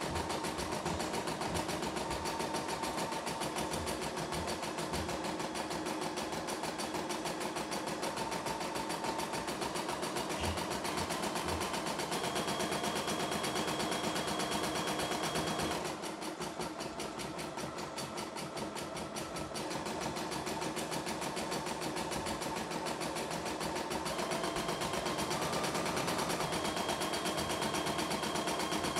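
CNY E960 computerized embroidery machine stitching, its needle clattering in a fast, even rhythm. About halfway through it goes quieter for a few seconds, then picks up again, with a thin high whine over it at times.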